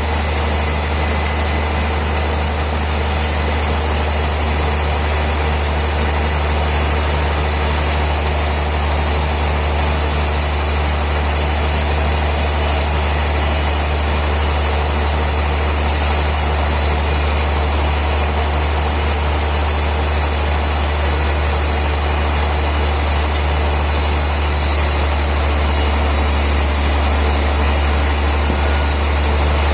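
Sawmill bandsaw machinery running steadily, a deep even hum with a constant noisy rush above it.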